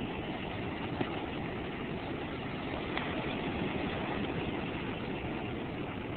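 Steady rushing noise of ocean surf on the beach, mixed with wind on the microphone.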